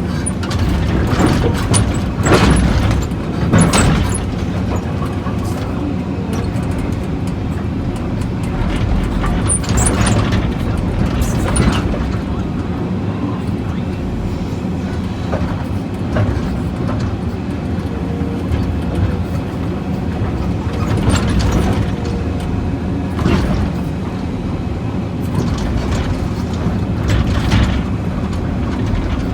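Heavy excavator's diesel engine running steadily, with irregular loud cracks and crunches as its hydraulic pulverizer attachment crushes material.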